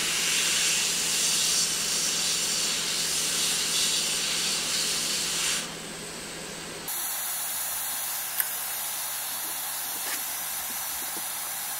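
Hot air rework gun blowing a steady hiss onto a small circuit board, heating an 8-pin chip's solder to lift the chip off. The airflow stops about six seconds in, leaving a fainter, steady hiss, with one faint click a couple of seconds later.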